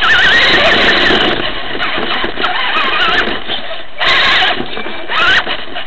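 Onboard sound of a Traxxas Slash electric RC short-course truck driving on a dirt track. The motor and drivetrain whine wavers up and down in pitch with the throttle over steady clatter, with two short bursts of hiss about four and five seconds in.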